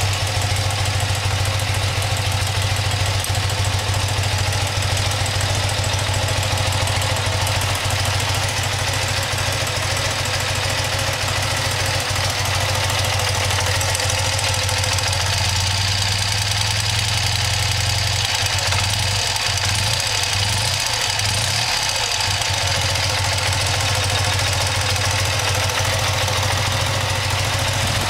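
BMW R80 air-cooled flat-twin engine idling steadily on newly fitted Keihin FCR carburettors while the two carbs are synchronised against a vacuum gauge.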